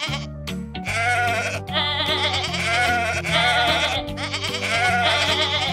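A run of goat bleats, wavering in pitch, over background music with a steady bass line.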